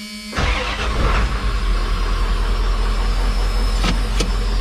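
A 1997 Ford F-Super Duty truck's engine starting, heard from inside the cab. A warning buzzer tone cuts off as the engine catches quickly, then the engine runs at a steady idle. Two light clicks come near the end.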